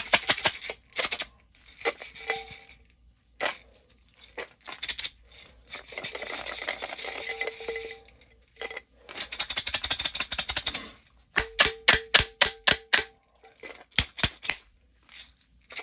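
Mason jar of colonizing mushroom grain spawn shaken by hand for a shake and break, breaking up the mycelium: loose grain rattles and rushes inside the glass, with sharp knocks and clinks of the jar and lid. Near the end comes a quick run of knocks, about six a second.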